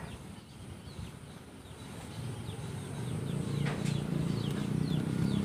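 Birds chirping in the background: short, high, falling chirps repeated about two or three times a second from about three seconds in, over a low hum that swells about halfway.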